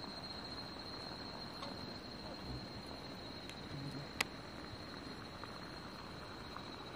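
Crickets trilling steadily in a high, even tone, with one sharp click about four seconds in.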